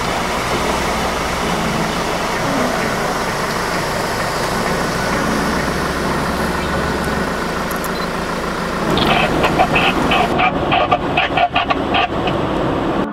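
Off-road 4x4 engines running as the vehicles wade through a shallow, stony stream, with water and mud splashing. Near the end the sound turns louder and choppy, with short broken pitched sounds.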